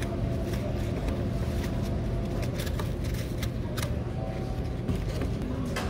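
Airport terminal background noise: a steady low hum and rumble, with scattered short clicks and clatter.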